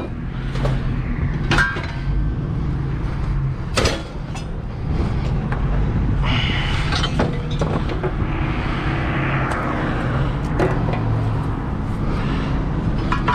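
A motor vehicle engine running steadily, with several sharp metal knocks and clanks from scrap being handled.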